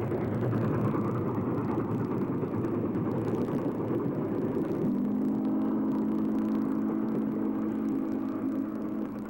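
Steam locomotive and passenger train running by with a steady rumble. About five seconds in, a whistle blows one long, low, steady blast that stops just before the end.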